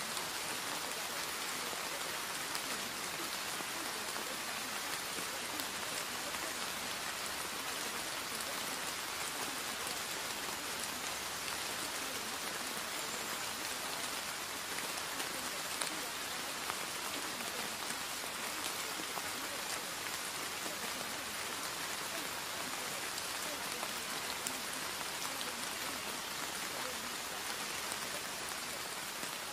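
Steady rain sound: an even hiss with scattered sharp drop ticks.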